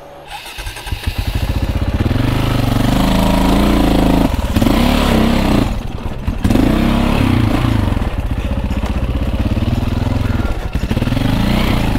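KTM 450 EXC single-cylinder dirt bike engine running under load, its revs rising and falling, building up from low in the first couple of seconds, with brief drops about four and six seconds in. The engine is running hot, close to overheating.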